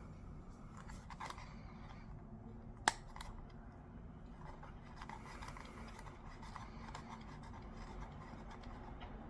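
Faint rubbing and scraping of a small object being handled, with one sharp click about three seconds in.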